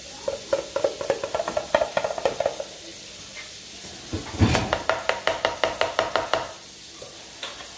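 Metal spoon scraping and clinking against a stainless steel mixing bowl in quick repeated strokes, the bowl ringing, as the last of the muffin batter is scooped out. There are two runs of strokes, and the second opens with a heavier knock about four seconds in.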